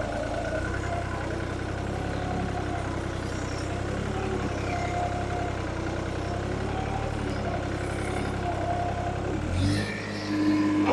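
New Holland 3630 tractor's diesel engine running steadily under field load with the throttle set at 2500 rpm, the revs pulled down by about 1000 rpm: the owner takes this for poor performance before the fuel pump and turbo are modified. Near the end the engine note dips briefly and then rises again.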